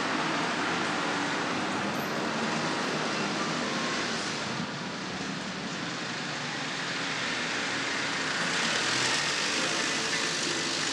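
Street traffic noise played back over a hall's loudspeakers: a steady hum of road traffic, growing louder about eight seconds in as a vehicle passes.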